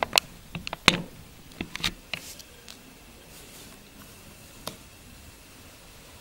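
Light clicks and taps from hands handling a plastic action figure with a jetpack on a cloth-covered surface: a quick cluster in the first two seconds and one more tap about two-thirds of the way through.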